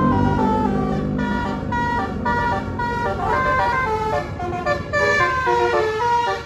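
Bus 'telolet' basuri multi-tone horn playing a fast tune, its notes stepping up and down every fraction of a second.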